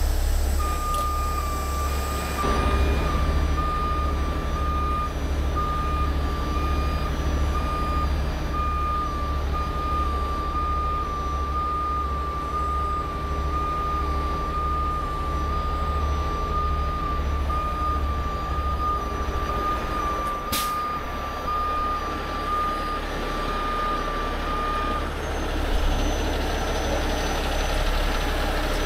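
Heavy rotator tow truck's diesel engine running while its reversing alarm beeps about once a second, stopping about 25 seconds in. A brief sharp hiss about three-quarters of the way through.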